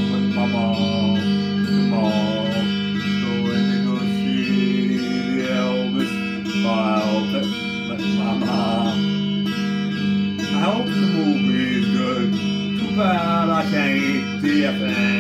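A man singing while strumming a white Stratocaster-style electric guitar.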